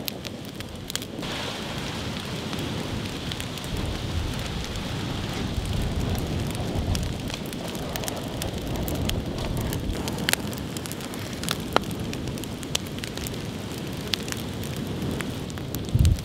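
Open log fire burning, with frequent sharp crackles and pops over a steady low rush of flames.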